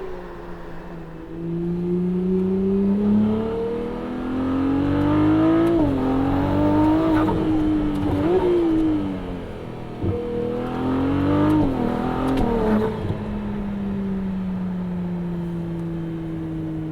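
Ferrari 296 GTS twin-turbo V6 with a full Capristo exhaust, accelerating hard through the gears. The engine note climbs and drops back at each of several quick upshifts. It then eases off, with the pitch falling steadily for the last few seconds.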